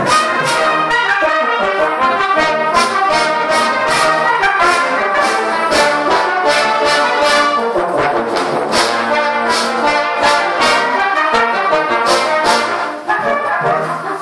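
Brass band playing a loud, fast classical passage of short accented notes, the whole band sounding together, easing briefly near the end.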